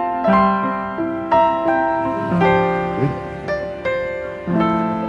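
Background piano music: chords struck roughly once a second, each ringing and fading before the next.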